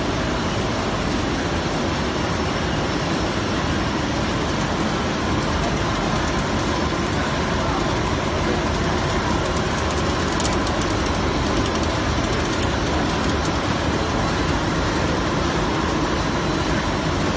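GF-K laminating machine running at about 150 metres per minute, film web travelling over its rollers onto the spinning rewind roll: a steady, even mechanical noise with a faint steady whine.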